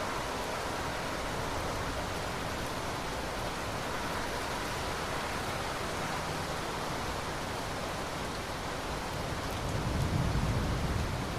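Steady rain falling, an even hiss, with a low rumble of distant thunder swelling briefly near the end.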